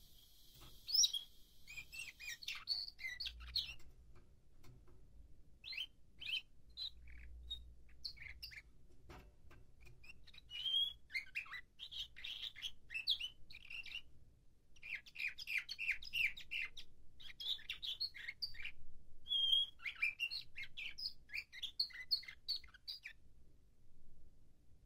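A nightingale-song canary singing phrases of rapid chirps and trills, with short pauses about four and fourteen seconds in, falling silent near the end. It is in its training period, its song still being shaped.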